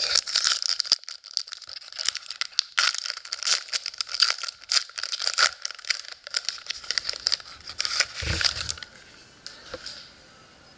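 Foil trading-card pack wrapper being torn open and crinkled in the hands. The crackling runs for about six seconds, then drops to faint handling as the card is drawn out.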